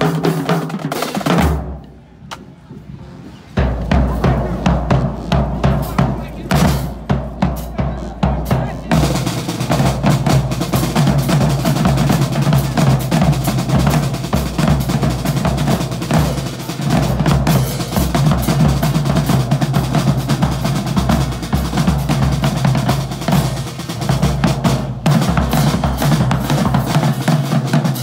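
Marching drumline of snare drums, bass drums and crash cymbals playing a fast cadence with a heavy bass-drum beat. The drumming breaks off about two seconds in and starts again a second and a half later.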